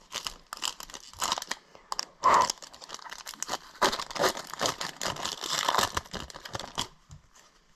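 Shiny foil wrapper of a hockey card pack crinkling and tearing as it is ripped open by hand, a run of irregular crackles that stops about a second before the end.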